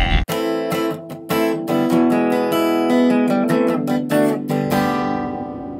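Strummed acoustic guitar music, a run of chord strokes that cuts in suddenly just after the start and dies away near the end.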